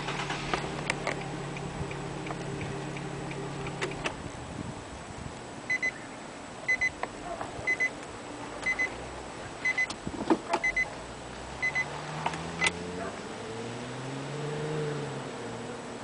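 Roadside traffic: a vehicle engine running steadily, then an electronic double beep repeating about once a second for several seconds, and an engine tone rising and falling in pitch near the end as a vehicle passes. A few scattered knocks.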